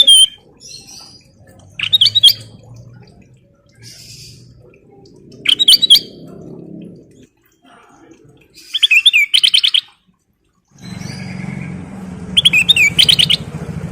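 Kutilang emas, a bulbul, singing in short, loud chattering phrases a few seconds apart, about five in all. Near the end a steady low engine drone comes in under the song.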